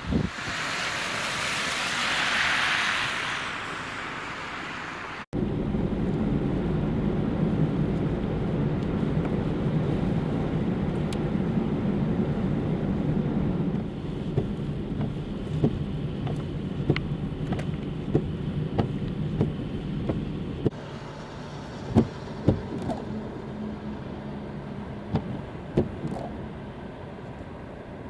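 Vehicle noise in several cut shots. A rushing hiss swells and fades over the first few seconds and then stops abruptly. A steady low drone with scattered faint ticks follows, dropping a little in level twice.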